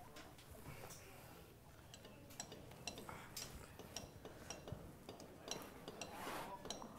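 Faint light metallic clinks, repeated roughly twice a second from about two seconds in, each with a short ringing note.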